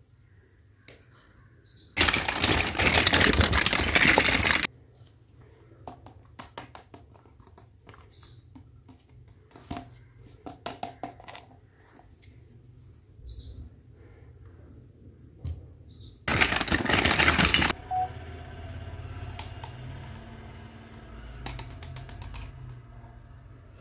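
Small plastic toy kitchen pieces clicking and tapping as they are handled and set down, with two loud stretches of rustling noise, one of about two and a half seconds near the start and a shorter one about two-thirds of the way in.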